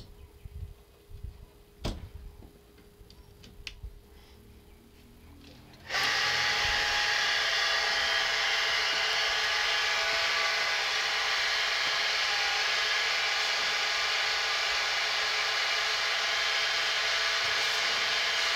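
An electric water pump switches on abruptly about six seconds in and then runs with a steady motor whine. It is started on a supply line that has just been primed with a hand priming pump. Before it starts there are only a few faint knocks.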